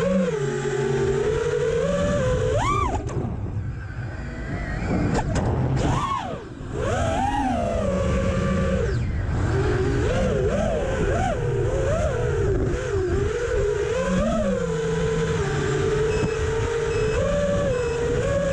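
FPV racing quadcopter's brushless motors whining, the pitch swooping up and down with the throttle. There is a sharp upward sweep about three seconds in, and a brief drop in level around the middle.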